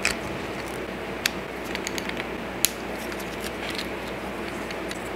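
Plastic joints and parts of a Transformers Legacy Evolution Crashbar action figure clicking as it is twisted and folded by hand into motorcycle mode. Scattered small sharp clicks, the loudest about two and a half seconds in.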